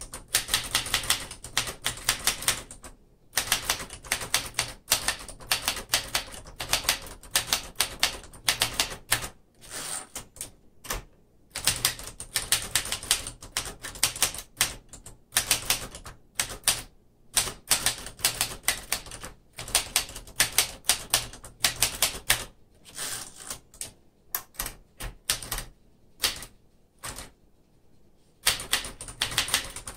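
1967 Smith Corona Corsair portable manual typewriter being typed on: quick runs of sharp keystroke clacks, broken by brief pauses every few seconds.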